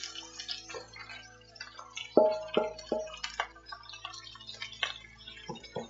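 Soft background music over faint sizzling from the pan, with scattered small ticks and three quick ringing clinks of a utensil against the cookware about two to three seconds in.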